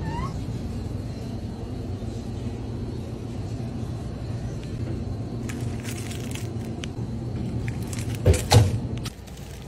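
Steady low hum from a refrigerated display shelf, with two loud knocks close together about eight seconds in as a packaged triangle kimbap is handled and taken off the shelf.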